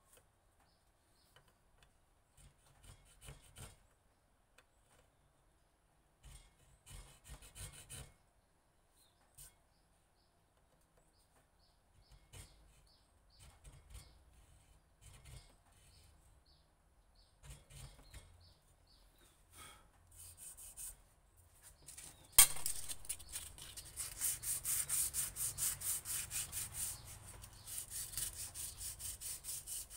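A small pointed steel tool scratching grooves into a wooden knife handle, in short, scattered scrapes. About two-thirds of the way through there is a sharp click, then quick, even rubbing strokes across the handle, several a second.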